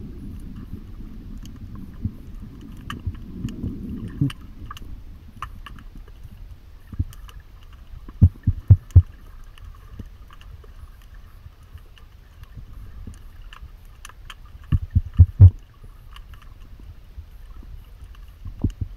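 Underwater ambience during a freedive with faint scattered clicks throughout and a low rumble in the first few seconds. Two quick clusters of loud low thumps come about 8 and 15 seconds in, with one more near the end.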